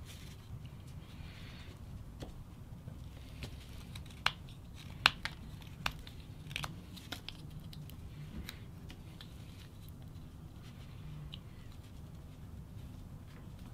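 Whittling knife slicing into a small wooden block: soft scraping cuts, with a few sharp clicks as chips break away, the loudest ones in the middle few seconds.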